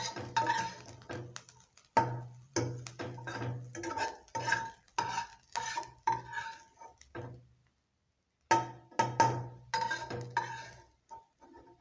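A cooking utensil scraping and knocking against a pan in a rapid run of ringing clinks, as the cooked onions and peppers are scooped out. There is a short pause a little after halfway.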